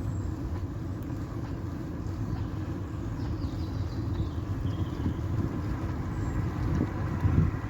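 Steady low rumble of wind buffeting the microphone while riding a bicycle, growing louder near the end.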